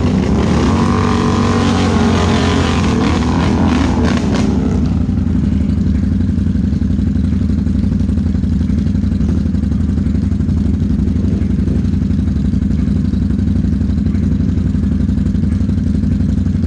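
A Can-Am ATV engine idles steadily. Over the first five seconds another engine revs unevenly over it, then the sound settles to the steady idle.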